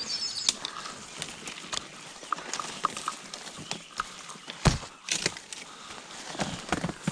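Footsteps crunching through dry leaf litter and twigs, with brush rustling, as an irregular run of sharp clicks and snaps; a heavier thump a little past halfway and a couple more near the end.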